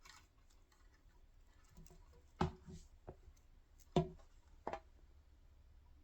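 A few light clicks and knocks from small parts being handled on a workbench, three sharper ones in the second half, over a faint steady low hum.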